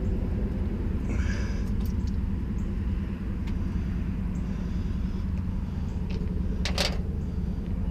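Steady low mechanical hum from a running motor, with a few light clicks and one short sharp knock near the end.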